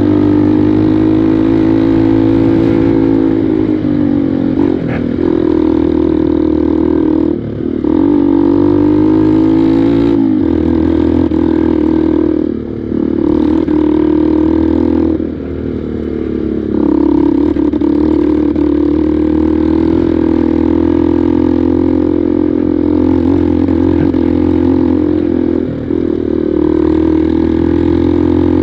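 Honda NXR 150 Bros trail bike's single-cylinder four-stroke engine running under way on a dirt road, its note wavering with the throttle. It briefly drops in pitch and level four times as the throttle is eased, then picks up again.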